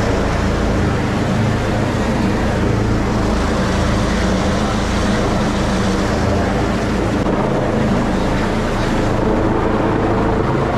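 Rescue helicopter hovering overhead during a night hoist: a loud, steady drone of rotor and turbine noise.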